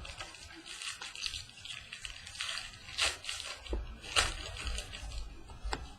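Trading cards and their packaging being handled: repeated rustling and sliding strokes, with a few light clicks near the end.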